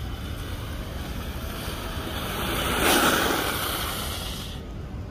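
Inline skate wheels hissing over wet asphalt as a skater comes in and slides sideways to a stop. The spray-like hiss swells to its loudest about three seconds in, then dies away.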